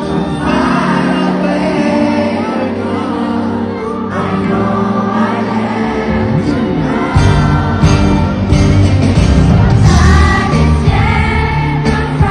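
Live concert music with a singer's voice over a sound system during a soundcheck; a heavy bass and drum beat comes in about seven seconds in.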